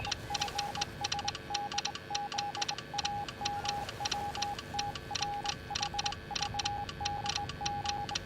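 Morse code sent as a single steady beeping tone, keyed on and off in short dots and longer dashes, with a rapid, irregular clicking alongside it.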